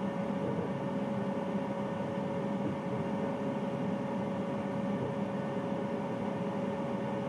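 Bathroom water-heater boiler running: a steady, unchanging hum with a constant tone over a low rush of noise.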